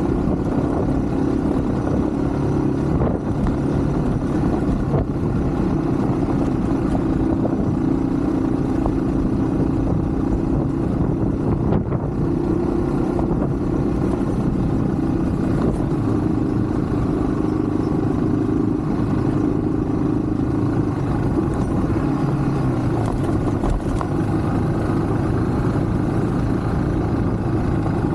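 Yamaha WR155 enduro motorcycle's single-cylinder engine running at a fairly steady pace while riding, with wind and road noise over it.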